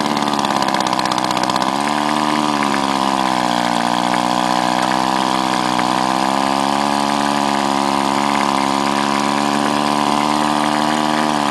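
Air motor of a Powerwise ink pump running on compressed air: a steady whine over a strong hiss of exhaust air. About two seconds in its pitch rises and then wavers slightly, as the cover screws are snugged down and its compression improves.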